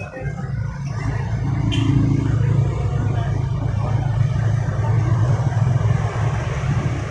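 A motor vehicle's engine running steadily, a continuous low rumble.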